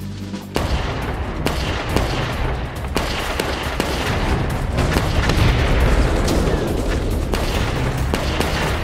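A small-arms barrage: rapid, overlapping rifle and machine-gun fire over a low rumble, starting about half a second in and running on as continuous firing.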